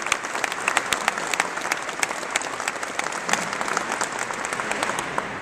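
Audience applauding, many hands clapping at once, thinning out in the second half.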